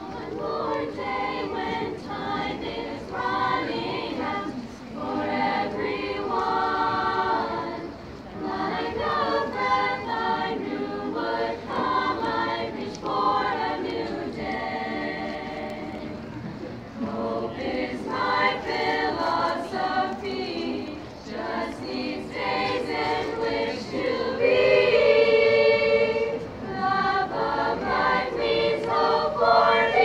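Girls' choir singing unaccompanied, in sustained sung phrases with short breaks between them, swelling louder in the last few seconds.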